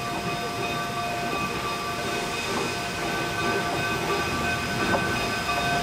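Narrow-gauge steam locomotive approaching slowly: a steady hiss with several steady high-pitched ringing tones, growing gradually louder as it comes closer, with a single click about five seconds in.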